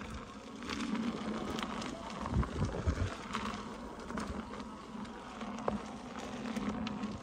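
Electric unicycle being ridden along a trail: a steady low hum from the wheel motor, with scattered small crackles from the tyre rolling over grit and a few low buffets of wind on the microphone about two to three seconds in.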